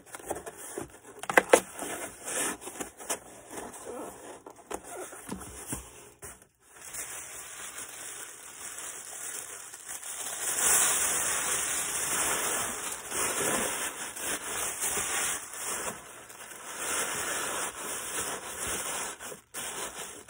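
Packing materials rustling and crinkling as an item is wrapped and boxed, with a couple of sharp clicks about a second in and louder crinkling around the middle.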